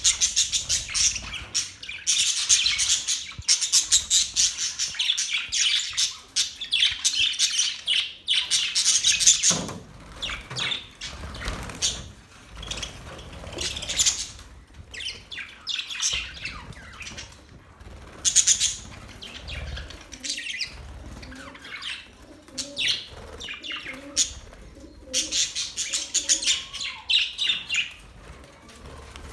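Budgerigars chirping and warbling in rapid high chatter. The chatter comes in dense runs, at the start, around eight to nine seconds in and again near the end, with sparser chirps between.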